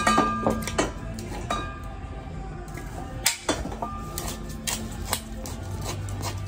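Orange hand tool worked around the end of a length of copper pipe: a run of irregular sharp metallic clicks and scrapes, a few of them leaving a brief ring in the copper.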